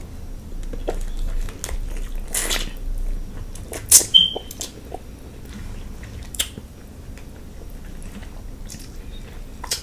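Close-up eating sounds of king crab: chewing and wet lip smacking, with scattered sharp clicks and cracks as the shell is worked open. A louder crack with a brief squeak comes about four seconds in.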